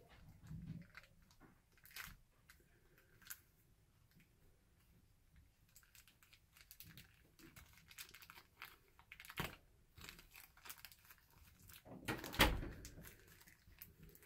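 Protective plastic being pulled off an action figure: scattered soft clicks and crinkles, with one louder rustle and knock about twelve seconds in.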